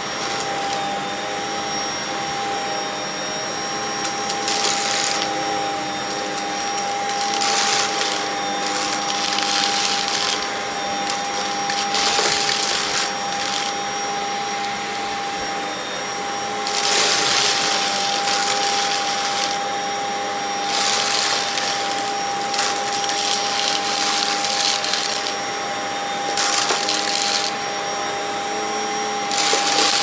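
Stick vacuum running steadily with a high whine, its floor head pushed over carpet covered in glitter, beads and grit. The debris crunches and rattles up the tube in short spells every few seconds as the head passes over it.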